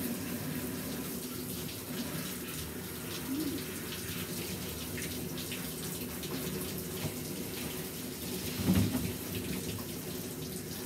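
Water running from a hand-held shower sprayer onto a Pomeranian's coat in a plastic grooming tub, rinsing out the conditioner. A brief louder thump about nine seconds in.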